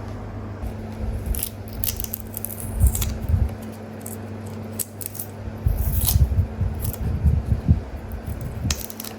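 Lychees being peeled by hand: scattered sharp crackles and clicks of the thin shell breaking, with soft low thumps of handling in the second half. A steady low hum runs underneath.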